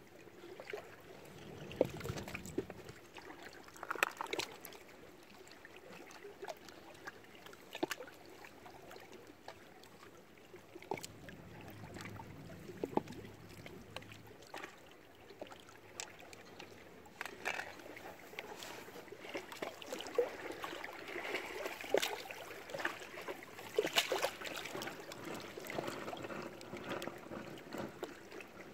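Small waves of lake water lapping and slapping against shoreline rocks in irregular little splashes and trickles, busier in the second half.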